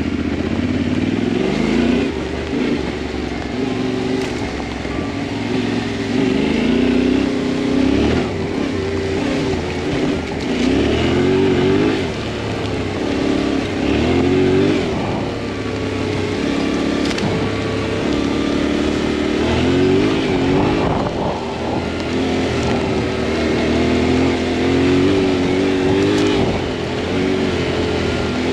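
Adventure motorcycle's engine running under way on a dirt track, its pitch rising and falling again and again as the throttle is opened and closed through the gears.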